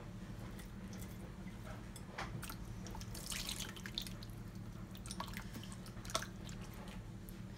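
A hand squeezing and turning raw chicken slices in a wet marinade: soft, scattered wet squelches and drips over a steady low hum.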